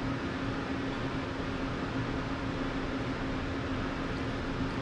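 Steady hum and rush of a commercial kitchen's ventilation fan, with one constant low tone under the noise.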